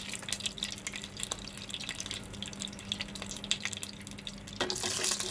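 Whole spices (bay leaves, cinnamon stick, cardamom, green chili) frying in hot oil in a nonstick saucepan: scattered small crackles and pops. Near the end the sizzle turns louder and steadier.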